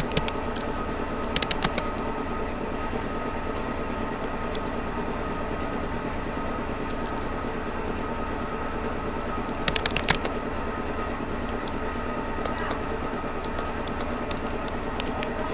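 Rapoo computer keyboard keys clicking in two short bursts, about a second and a half in and again near ten seconds, with a few scattered single key taps, over a steady droning background noise.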